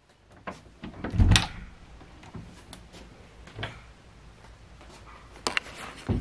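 Interior door being opened and handled: a heavy low thump about a second in, then a few lighter knocks and sharp clicks.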